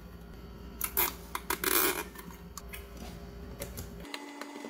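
Hands handling an Amiga 4000 power supply's metal case and circuit board: scattered light clicks and clinks, with a short rustling scrape about two seconds in, over a low steady hum.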